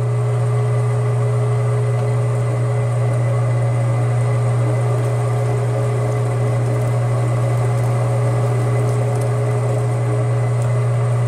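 Metal lathe running steadily with a constant low hum while a single-point threading tool cuts threads on a hydraulic fitting.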